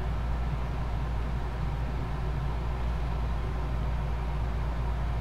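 Steady low background hum with no distinct events: room tone.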